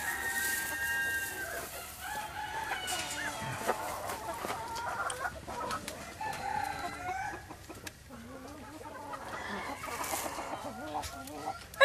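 Chickens clucking, with a rooster crowing among them, a string of short varying calls through the whole stretch.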